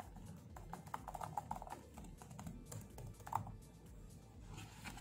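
Keys of a Microsoft Surface Go Type Cover keyboard tapped by hand to try their feel. The soft clicks come in a quick flurry over the first two seconds, then one stronger click, then a few more near the end.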